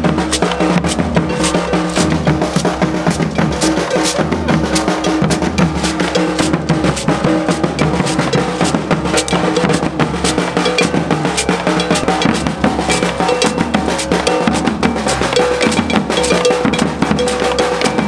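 Percussion ensemble playing a busy, steady drum rhythm, with bass drums, stick-struck drums and a bell, over a few held pitched notes.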